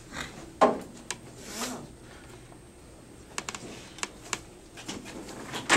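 Papers and picture props being handled: a brief rustle and scattered small clicks and knocks, with one louder knock just under a second in.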